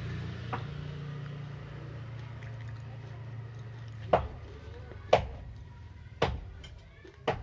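A steady low hum, then four sharp knocks about a second apart, starting about four seconds in.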